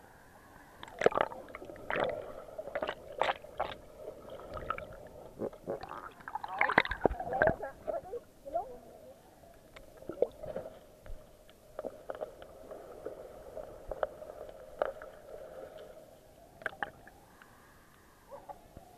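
Muffled underwater sound through an action camera's waterproof housing: a steady low hum and gurgling water, broken by frequent sharp clicks and knocks, with a louder stretch of gurgling about six to eight seconds in.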